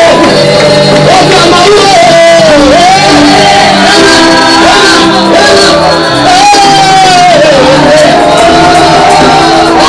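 Live gospel praise-and-worship music, loud: voices singing a melody over electronic keyboard chords and a drum kit.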